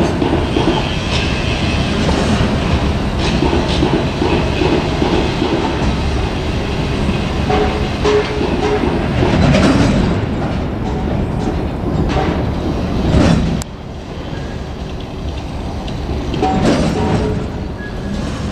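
Freight train hauled by an EF81 electric locomotive rolling past, its wheels clattering steadily over the rail joints. The sound drops off sharply about three-quarters of the way through.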